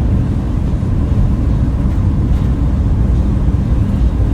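Steady low rumble of a van driving on the highway in strong wind, engine, tyre and wind noise heard from inside the cab.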